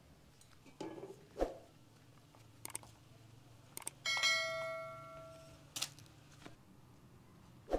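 Light clinks and knocks of kitchen utensils and dishes, with one struck metal ring about four seconds in that fades over about a second and a half.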